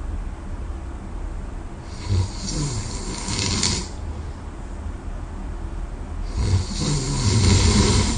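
A person snoring in deep sleep: two long snores about four seconds apart, each a low vibrating snore with a hissing breath.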